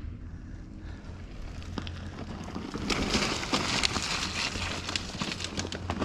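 Crunching and clattering of loose rock and gravel on a rocky dirt trail under a mountain bike and rider, with many sharp clicks, loudest from about three to five seconds in.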